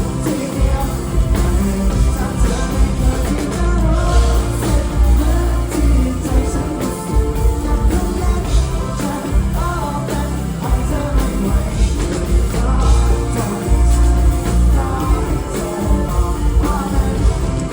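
Thai pop-rock song: a voice singing over a full band with drums and a heavy bass line.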